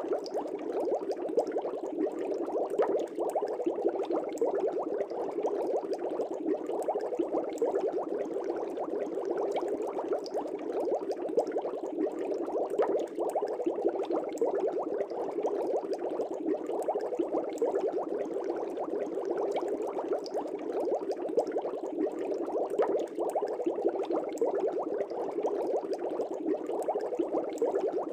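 Air bubbles bubbling steadily in a fish tank, a dense run of small pops and gurgles.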